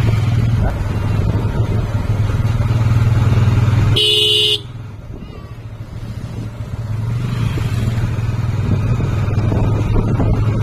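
Motorcycle engine running steadily under the rider as it travels. A horn sounds once, briefly, about four seconds in. The engine then eases off for a couple of seconds before picking up again.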